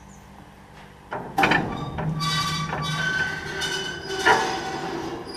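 Welger AP41 small square baler starting up about a second in: a sudden clank, then the mechanism running with metallic clattering and high squealing. Another loud clank comes near the end.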